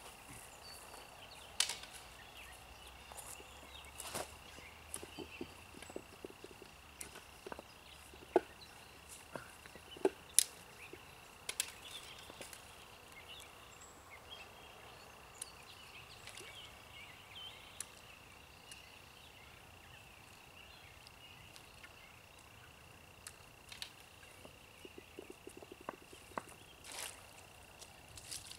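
Scattered sharp clicks and taps of a fishing rod, reel and landing net being handled while a large carp is played at the bank, over a steady thin high-pitched tone. A cluster of small clicks and a brief louder rush come near the end as the net goes into the water.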